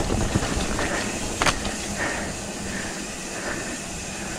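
Mountain bike rolling along a dirt trail: a steady rumble of tyre and wind noise, with a sharp click about a second and a half in. It grows quieter over the second half.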